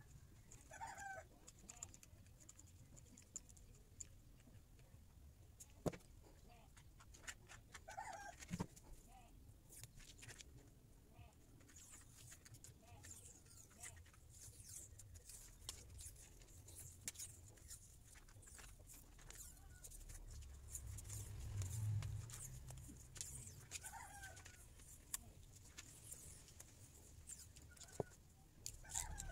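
Quiet handling sounds: faint clicks and taps as hands work the wires of a soldered lithium-cell pack and wrap it in electrical tape, with a few faint animal calls in the background.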